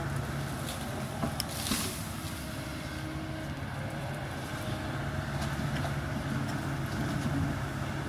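Kobelco 220 hydraulic excavator's diesel engine running steadily under load as the boom and bucket work. A couple of short cracks come between one and two seconds in.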